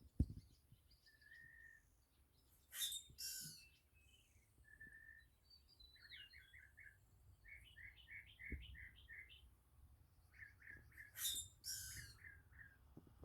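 Grackle giving two harsh, squeaky calls about eight seconds apart, with quicker series of short repeated chirps from other birds in between. A brief knock sounds right at the start.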